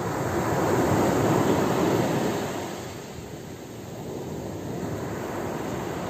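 Small sea waves breaking and washing up a fine-pebble beach. One wave surges to a peak about a second in and fades by the middle, then the next wash rises more gently.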